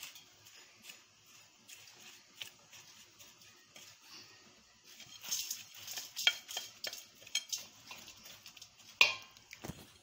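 A spoon scraping and clinking against a plate and the rim of a steel bowl as dry ground spice mix is pushed off the plate onto cut green chillies. The scrapes and taps come in scattered bursts, busier about halfway through, with one sharp knock near the end.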